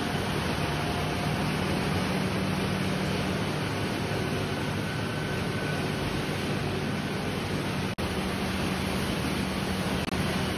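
Rubber-processing factory machinery, the rows of roller mills and washing tank, running steadily as a dense, even din with a constant low hum. It breaks off for an instant about eight seconds in.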